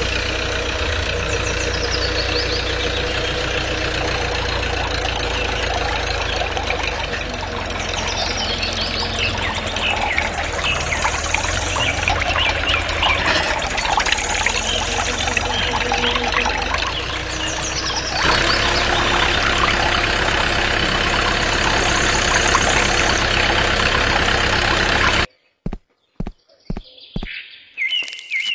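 A small engine running steadily under a dense rush of gushing water, with birds chirping over it. About 25 seconds in it cuts off abruptly, and a few short clicks follow.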